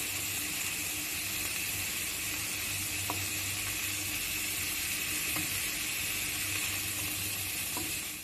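Shredded cabbage, peas, onion and green chillies sizzling in hot oil in a frying pan as they are stir-fried with a wooden spatula: a steady frying hiss with a few faint taps of the spatula.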